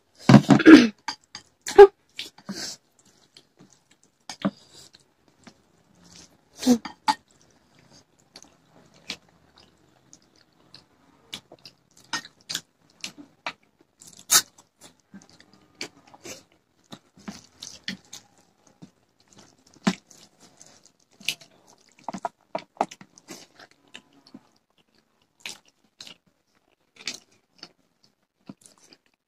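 Close-up eating sounds: people chewing mouthfuls of rice and side dishes, with scattered short wet smacks and a few crunchy bites at irregular intervals. The sounds are loudest in the first couple of seconds.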